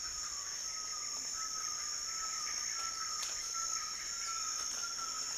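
Rainforest ambience: a steady, high-pitched drone of insects, with a fainter, lower steady tone running beneath it.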